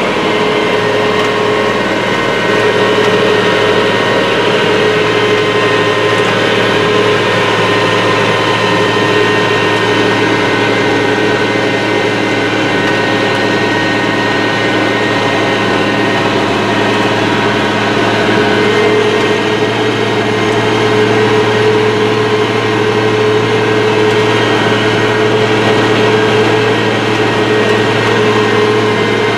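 International Harvester 3788 2+2 tractor's turbocharged DT-466 six-cylinder diesel running steadily under load while pulling a chisel plow, heard from inside the cab as an even drone.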